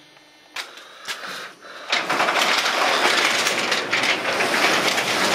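Sectional garage door rolling up on its metal tracks: a few clicks, then about two seconds in a loud, steady rattling clatter.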